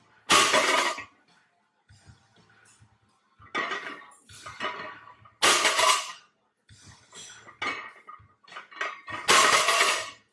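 Loaded barbell set down on the floor during sumo deadlift reps: three loud metallic clanks of the weight plates, about four seconds apart, with lighter rattling of the plates between them.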